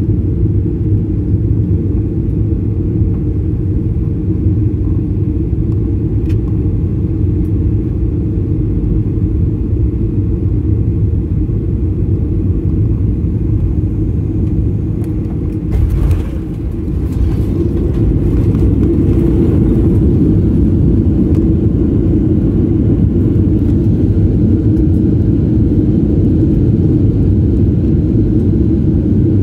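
Cabin noise of a Boeing 737-800 landing: a steady low rumble of engines and airflow on final approach. About halfway through, the touchdown brings a brief clatter and a short dip in level. It is followed by a louder steady rumble as the jet rolls out and slows on the runway.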